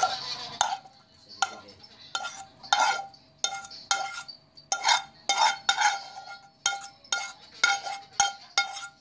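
Metal spoon scraping and knocking against a frying pan while stir-fried vegetables are scraped out of it, a string of about fifteen ringing clinks roughly every half second.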